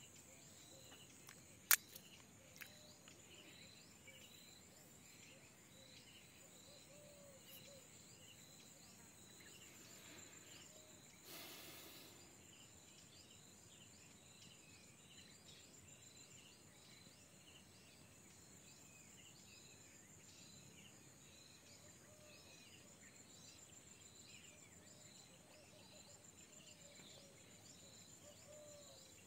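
Faint outdoor ambience: a steady high-pitched insect trill, like crickets, with scattered small bird chirps. A single sharp click sounds about two seconds in, and a brief rustle about eleven seconds in.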